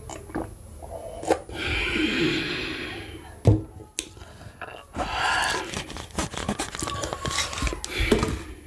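A woman breathing out hard after a drink, with a sharp knock about halfway through as a glass mug is set down on the table. Another long breath follows, then a run of small clicks and crackles as a plastic water bottle is handled near the end.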